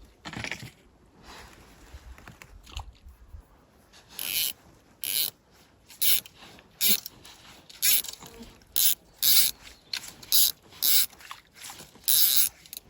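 Click-and-pawl fly reel ratcheting in short buzzing bursts as line is pulled off it by hand, about ten pulls at roughly one a second.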